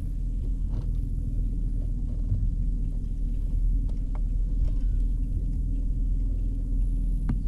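Bass boat's outboard motor running with a steady low rumble, with a few faint ticks and short chirps above it.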